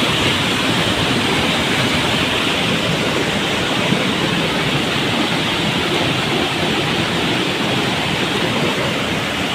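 Small forest waterfall rushing steadily with a loud, even noise of falling water.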